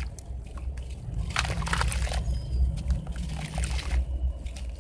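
Soft grey sand block crumbling in the hands, with gritty crackles as it breaks and crumbs and lumps sloshing and splashing into a basin of water. A steady low rumble runs underneath.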